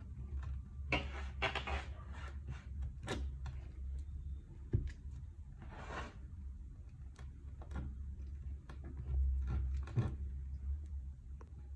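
Kinetic sand crunching and crumbling as fingers press and break it apart around a plastic bottle, in irregular soft rustling bursts with a few sharp clicks of the bottle being handled, over a steady low hum.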